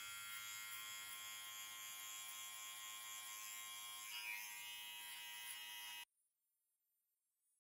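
Electric hair clipper buzzing steadily as it runs over the beard on the cheek, then stopping abruptly about six seconds in.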